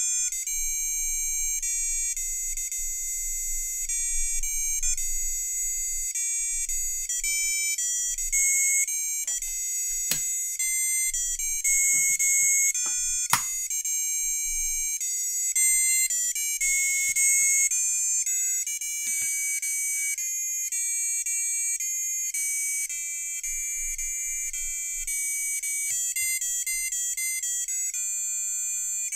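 Electronic beeping melody played note by note by the LED heart kit's onboard buzzer, a thin, high, ringtone-like tune. A couple of light knocks of the board being handled come about ten and thirteen seconds in.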